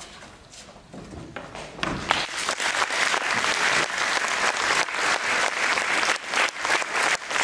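Audience applauding: clapping begins faintly about a second in and grows to a loud, dense, steady applause by two seconds in.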